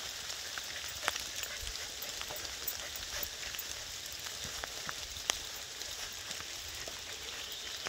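Steady rain hissing down on the forest foliage, with scattered sharp drips ticking close by; two louder drips land about a second in and about five seconds in.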